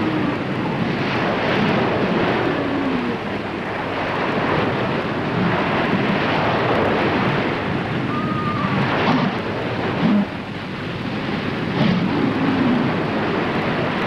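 Surf breaking and water splashing as a group of New Zealand sea lions plunges through the shallows into the sea, with a few short pitched calls over it.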